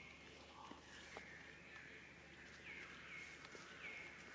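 Faint, high-pitched animal calls repeated about five times, each sliding quickly down and then holding a short steady note, over a near-silent outdoor background with a few light clicks.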